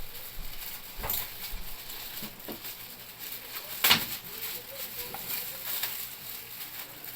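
Scattered knocks and clicks of things being handled, three sharp ones standing out, the loudest about four seconds in.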